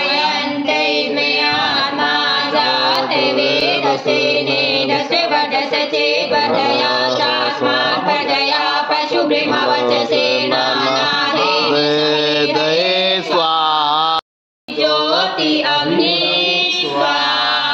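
Hindu devotional mantra chanting sung over music, steady and continuous, with a brief dropout about two-thirds of the way through.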